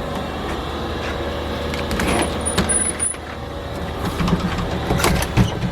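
A steady machine hum with a few scattered knocks and clicks.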